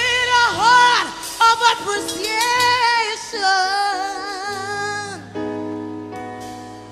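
Gospel singing: a voice in sliding melismatic runs with vibrato. About five seconds in the voice stops and a held instrumental chord carries on.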